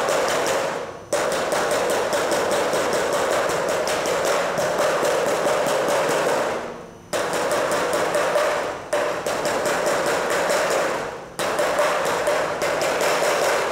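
Claw hammer striking the edge of a COLORBOND steel fascia panel with quick, even blows. The blows come in runs broken by brief pauses about a second in, around seven and nine seconds, and near eleven and a half seconds, and they stop just before the end.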